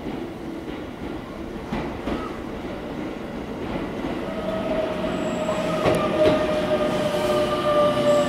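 Keikyu 600 series electric train pulling in and slowing, its GTO-VVVF inverter and traction motors whining. A steady whine comes in about halfway and sinks slightly in pitch, with a few sharp clicks from the wheels.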